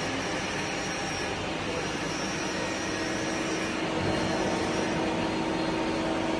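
Steady mechanical whir and hum of running shop machinery, with a constant low tone, growing slightly louder about four seconds in.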